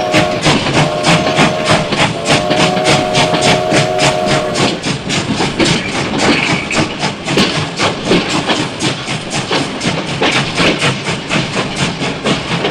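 Toy steam locomotive's chugging sound effect: rapid, even chuffs throughout, with a chord whistle sounding three times over the first few seconds.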